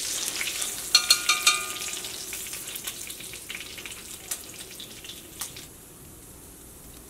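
Indian mackerel sizzling in hot oil in a cast-iron wok as a metal slotted spatula lifts it out. About a second in there are several sharp, ringing clinks of metal on metal, and a few lighter ticks follow. The sizzle dies away near the end.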